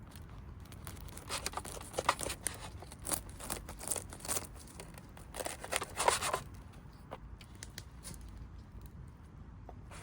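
Rustling and crinkling handling noises, irregular and bunched, for about the first six seconds, then only a few faint clicks.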